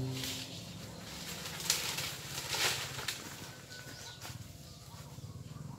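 Leaves and twigs rustling in a few loud bursts as a long bamboo harvesting pole is pushed and jerked through a mango tree's foliage. It quiets down after about three seconds.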